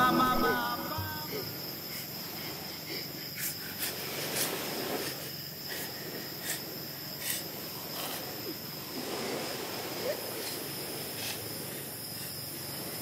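Night ambience of crickets chirring steadily, with a few faint clicks scattered through. The tail of a music cue fades out in the first second.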